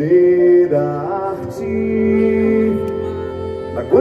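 Slow, soft live music from a concert stage, with long held notes over a steady bass.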